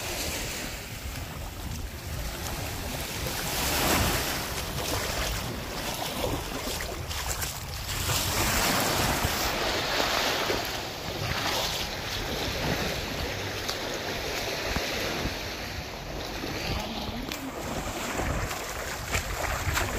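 Small waves washing up on a sandy beach, swelling and fading in surges, with wind buffeting the microphone.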